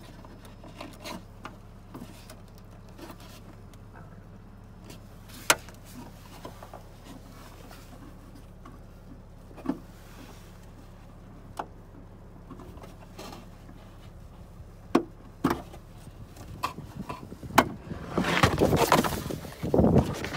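Sparse clicks and light knocks of hands working plastic trim clips and the license-plate lamp sockets and wiring under a car's trunk lid, over a faint steady low hum. Near the end comes a dense burst of handling noise as the phone is moved around.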